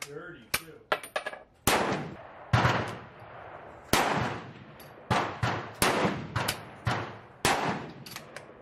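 Gunshots from rifles on a shooting range: about eight loud reports at irregular intervals, each with a short fading tail, with fainter shots between them. In the first second or so come light metallic clicks of a bolt-action rifle's action being handled.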